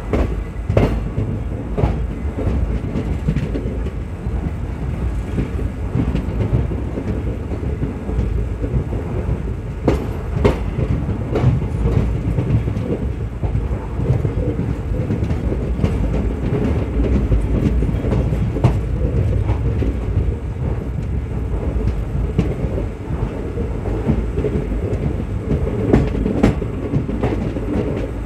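Indian Railways ICF passenger coach running along the track: a steady low rumble of wheels on rail, with sharp clacks now and then from rail joints, the loudest about ten seconds in and near the end.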